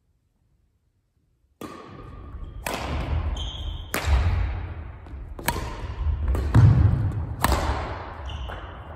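A badminton rally: rackets strike the shuttlecock sharply about six times, roughly a second or so apart, each hit echoing in the hall, with sneakers squeaking and feet thudding on the wooden gym floor between shots. The first second and a half is silent.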